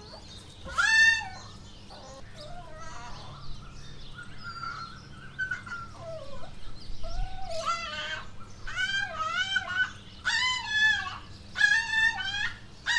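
Puppy crying and whining in high, wavering cries: one about a second in, then a run of repeated cries that come closer together in the second half. It cries when its owner moves away from it.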